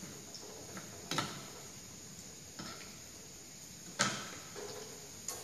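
Kitchen knife knocking on a wooden cutting board while slicing spice ingredients: a few sharp, irregular knocks, the loudest about four seconds in.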